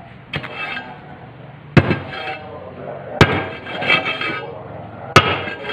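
Hammer blows on the steel press plate of a manual paving block mould, packing the concrete mix down: four strikes about a second and a half apart, each with a metallic ringing clatter after it.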